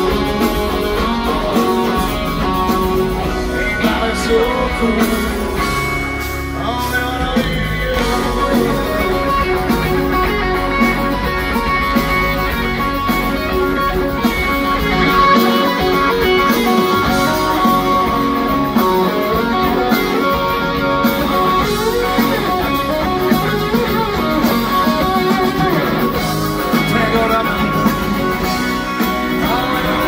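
A live pop-rock band playing through a concert PA, heard from the audience, with electric guitar prominent over drums and bass and singing in parts.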